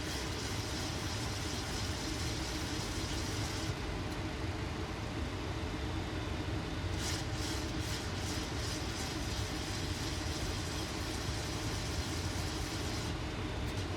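Boeing 737 flight-deck noise on final approach with the landing gear down: a steady rush of airflow and engine noise with a faint low hum.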